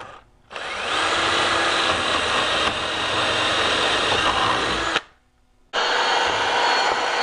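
Ryobi cordless drill boring through a drawer slide's mounting hole into the wooden frame. The motor spins up about half a second in and runs steadily for about four and a half seconds. It stops for under a second, then starts running again.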